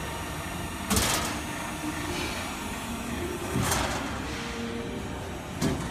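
Hydraulic panbrake folder running with a steady hum, broken by three sharp clanks about a second in, near the middle and near the end.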